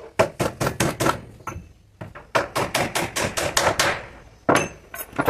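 Hammer blows on wood, driving nails in quick runs of sharp strikes. About seven come in the first second, then a short pause, then a faster run of about nine at roughly five a second, and a few more near the end.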